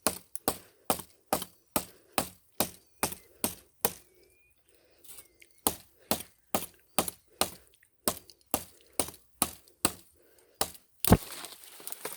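A knife hacking repeatedly at the stalk of a licuri palm fruit bunch, sharp chops about two to three a second with one short pause. Near the end a louder crack and a rustle as the bunch breaks free.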